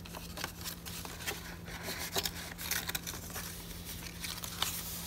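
Paper rustling and crinkling as the tea-stained and eco-dyed pages of a handmade junk journal and a tucked-in envelope are handled and turned, in many short scrapes and flicks. A steady low hum runs underneath.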